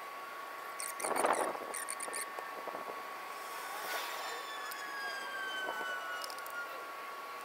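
Bare bicycle frame being handled and set down on a tarp over concrete: a brief scrape about a second in, then light knocks, over a steady faint high whine.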